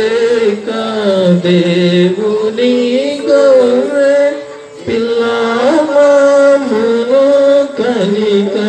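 Hymn singing in a slow melody, the voices holding long notes and gliding between them.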